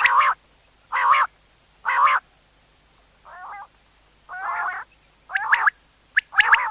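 Common quail calling: short rasping notes about once a second, two softer ones a little past the middle, then quick sharp notes near the end.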